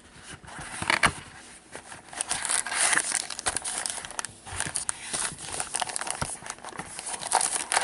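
Trading card packaging being torn open and crinkled: dense, irregular crackling that builds from about two seconds in, after a couple of knocks near the start.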